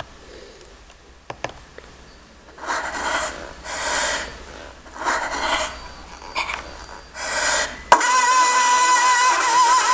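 A voice breathing hard in about five loud, breathy bursts, starting a few seconds in. Music with a held melody begins about eight seconds in.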